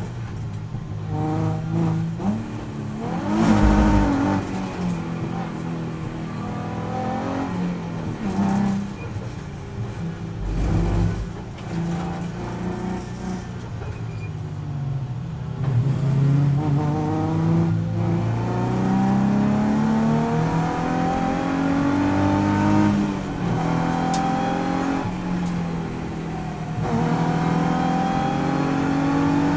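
Nissan 350Z race car's 3.5-litre V6 heard from inside the cabin, pulling at moderate revs in low gears with its pitch climbing in steps as it changes up. Two deep thumps come about three and eleven seconds in.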